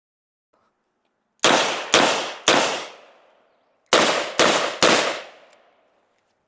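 Six revolver shots from a Ruger GP100 .357, fired in two quick strings of three about half a second apart, with a pause of about a second and a half between the strings; each shot rings off briefly.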